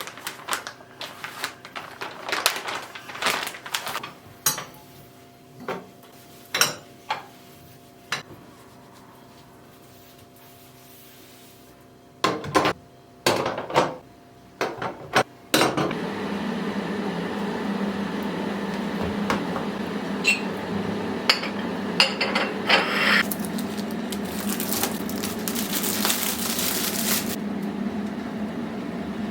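Dishes, pots and cutlery clinking and knocking for about fifteen seconds. Then a steady machine hum starts suddenly and runs on, with a louder hiss for a few seconds near the end.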